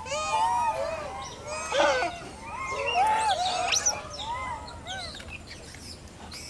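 Rhesus macaques calling: many short rising-and-falling coos at several pitches, overlapping thickly at first and thinning out over the last couple of seconds.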